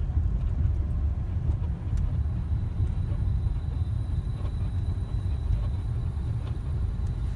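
Steady low rumble of a 2006 Hyundai Sonata on the move, with a few faint knocks, which the owner puts down to the newly replaced front struts.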